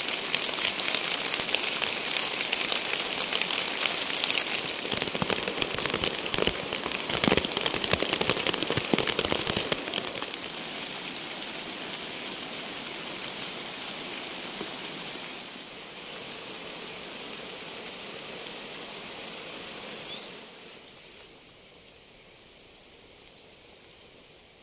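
Rain falling steadily, a dense pattering hiss of drops, heavy for about ten seconds and then easing off in steps until it fades away near the end.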